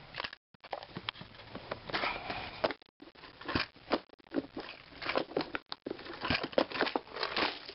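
Clear plastic tackle utility box being handled: an irregular run of sharp plastic clicks, taps and rattles as its lid is shut and the box is moved about.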